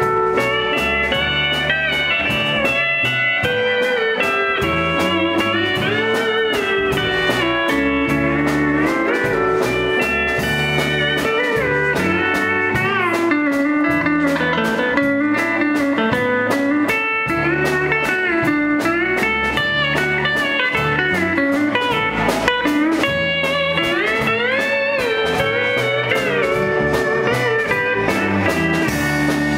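Live country band playing an instrumental, led by a pedal steel guitar whose notes glide up and down, over a bass line and a steady beat, with a fiddle and an acoustic guitar playing along.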